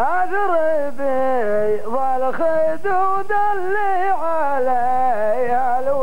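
A man singing a long, wavering melodic line without clear words, the chanted tune that carries the verses of Saudi qalta poetry. The pitch rises at the start, then sways up and down.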